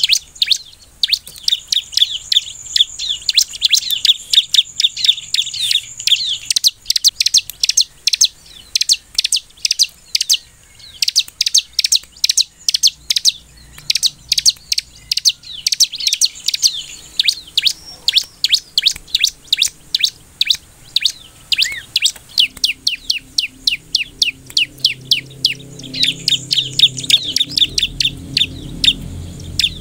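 Bar-winged prinia (ciblek) calling in full song: a fast run of sharp, high chirps, several a second, broken by bursts of quicker chattering trills. A faint low hum comes in during the last several seconds.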